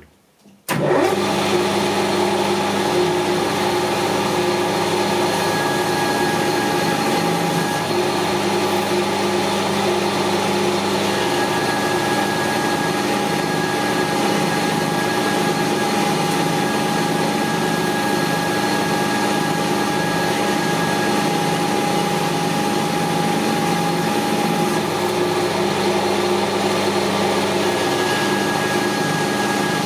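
Metal lathe switched on about a second in, then running steadily with a constant mechanical hum of its motor and gear train, spindle geared down to 640 RPM.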